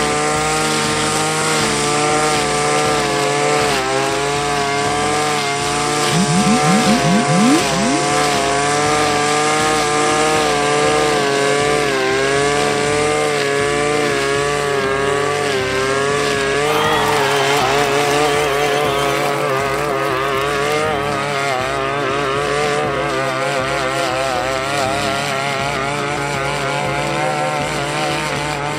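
Engine brush cutter fitted with a shredder blade, running at speed while cutting weeds. Its note wavers as the load changes, with a few quick rising sweeps and a louder stretch about six seconds in. The note grows more unsteady a little past halfway.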